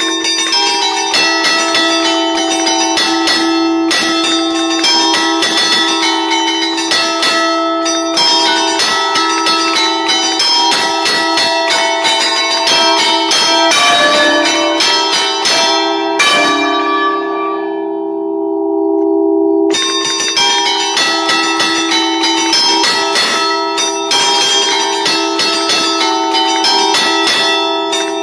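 A concerto of five church bells cast by Barigozzi in 1952, tuned in D, struck by hand from a lever keyboard in an allegrezza: a fast run of melodic strikes over long ringing tones. About 16 seconds in the striking stops and the bells ring on and fade for about three seconds, then the tune starts again.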